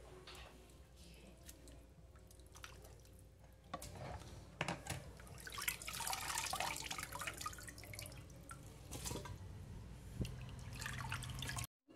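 Water splashing and dripping as raw chicken pieces are lifted by hand out of a bowl of water, in irregular splashes from about four seconds in.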